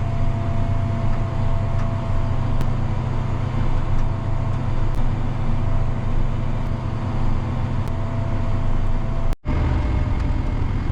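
Spraying rig's engine running steadily under load, with a thin steady whine on top. About nine seconds in, the sound cuts out for a moment, and a similar engine drone carries on without the whine.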